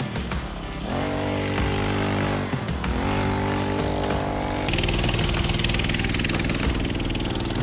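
40cc two-stroke pocket bike engine revving, rising in pitch twice, then held at high revs as the bike pulls away near the middle.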